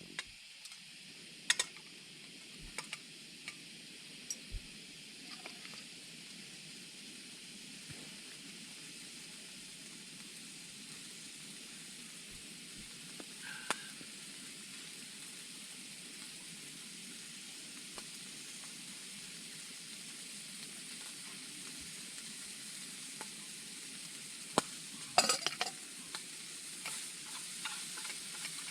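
Food sizzling in a frying pan, a steady hiss that grows slightly louder, with occasional sharp clicks and taps from a utensil, several together near the end.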